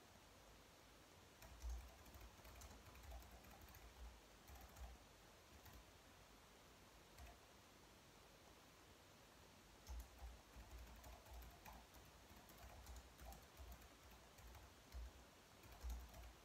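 Faint typing on a low-profile keyboard: runs of soft key clicks, with a pause of a few seconds in the middle before the typing picks up again.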